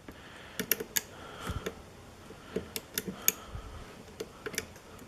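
Lock pick working the pin stacks of a pin tumbler lock: small, sharp metallic clicks at irregular intervals as pins are lifted and set, with a couple of dull low bumps.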